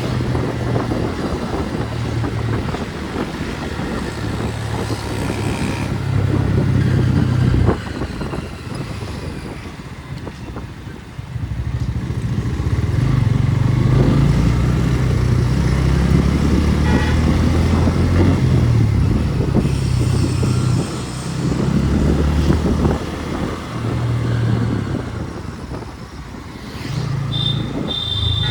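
Motorcycle engine running under way on the road, its note rising and falling with the throttle, dropping quieter for a few seconds about a third of the way in.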